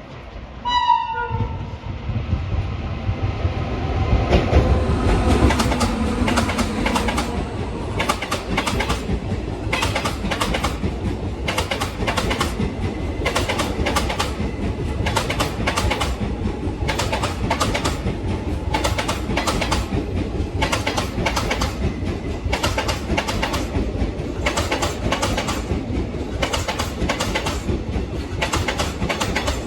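An Indian Railways passenger train horn sounds briefly about a second in. Then a fast train passes, its wheels clicking over rail joints in a steady, quick rhythm.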